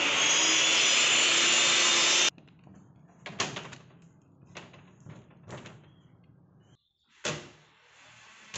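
A woodworking power tool running loud and steady, which stops abruptly about two seconds in, followed by a few sharp knocks on the wood panels.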